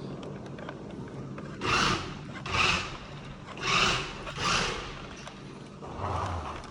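Tyco Dagger remote-control dragster's electric motor and wheels whirring in four short bursts as the throttle is blipped, then starting to run more steadily near the end.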